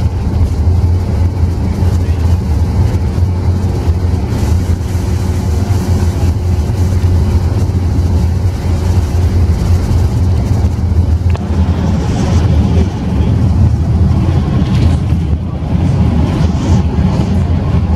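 Optare Versa single-deck bus at cruising speed, heard from inside the passenger cabin: a steady low engine drone mixed with road and tyre noise.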